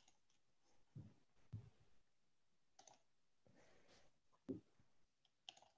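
Near silence with a few faint, scattered clicks and soft knocks, as from a computer mouse and keyboard being worked.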